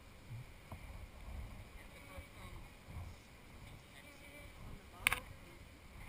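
Low, uneven rumble of handling and wind noise on the head-mounted camera's microphone, with faint voices, as a frame of honeybees is held up. A single sharp click about five seconds in.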